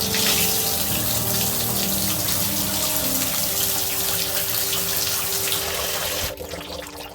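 Water running hard from the shower into the boat's shower pan to flush the baking-soda-and-vinegar-treated drain, shut off suddenly about six seconds in. Background music plays underneath.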